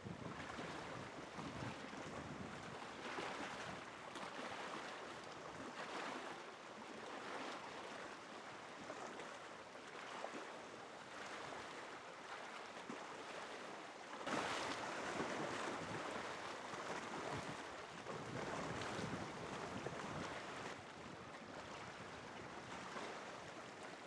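A steady rushing noise with no distinct tones, swelling and easing every few seconds.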